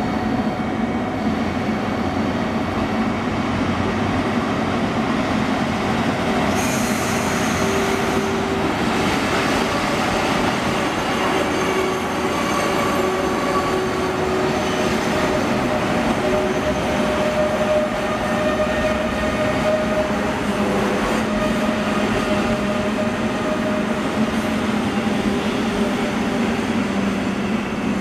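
Container freight train hauled by an EF81 electric locomotive rolling past, the wagons' wheels rumbling on the rails with thin wheel squeals that come and go.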